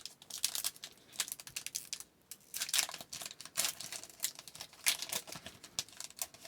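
Trading-card pack wrapper being torn open and crinkled, with a quick run of irregular crackles and clicks as the cards are pulled out and handled.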